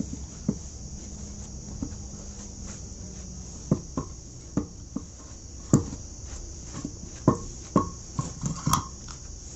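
A dozen or so light knocks and taps, scattered irregularly over the second half, over a steady high chirring of crickets.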